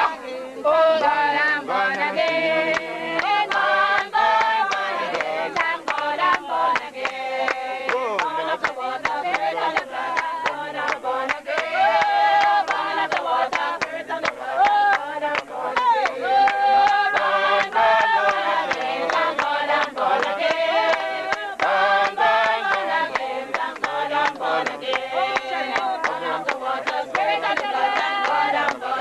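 A group of voices singing together, congregational style, with sharp percussive taps running through the singing.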